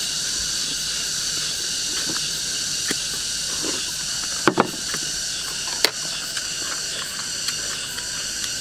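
Eating at a table: scattered clicks of chopsticks against bowls, with a louder pair of knocks about halfway through and another a little later. Under them runs a steady high insect hiss from the surrounding greenery.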